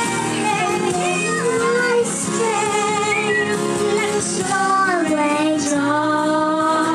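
A young girl singing into a handheld microphone along with a recorded song, a woman's singing voice and instrumental backing underneath.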